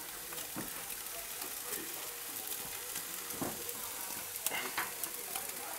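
Meat searing in a Beefmaker Pro grill at about 800 degrees, sizzling and crackling steadily, with a faint steady hum underneath.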